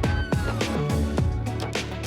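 Background electronic music with a steady beat of deep drum hits.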